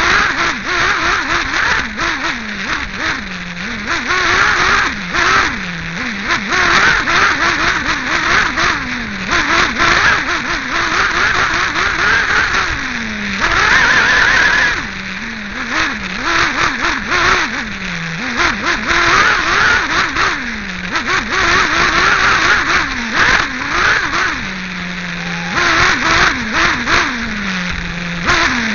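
A Team Associated RC8B nitro buggy's small two-stroke glow engine, heard from on board, revving up and falling away again every second or two as it is driven around a dirt track. A strong rushing hiss and frequent sharp knocks run through it.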